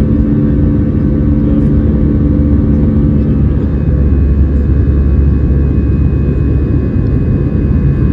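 Jet airliner cabin noise just after takeoff: a loud, steady low rumble of the engines running at climb power, heard from a window seat beside the engine. A humming tone in the noise drops away about three and a half seconds in.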